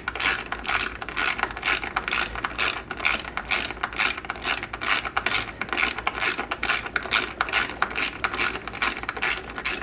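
Hand ratchet with a 10 mm socket loosening a bolt: the pawl clicks in quick, even bursts, about three a second, as the handle is swung back and forth.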